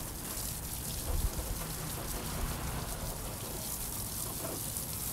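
Water from a hose spraying into a car's wheel well, splashing steadily onto the arch liner, brake disc and wet floor as the soap is rinsed off.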